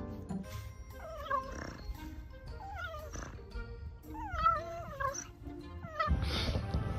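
A dog making high, wavering whining calls, four times, the pitch sliding down within each call. Near the end a burst of wind-like noise comes in.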